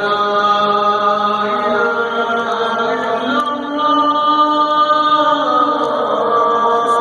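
A muezzin's voice calling the adhan, the Islamic call to prayer, through the mosque's loudspeakers: long drawn-out notes that step and slide in pitch.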